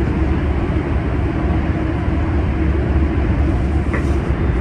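An older MBTA Red Line subway train running through a tunnel, heard from inside the car: a loud, steady rumble of wheels on rails and running gear.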